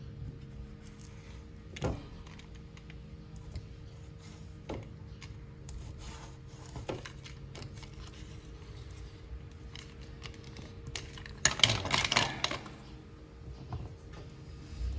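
Hands working on a window screen frame and its new screen mesh: scattered light clicks and taps, then about a second of louder rattling and scraping near twelve seconds in.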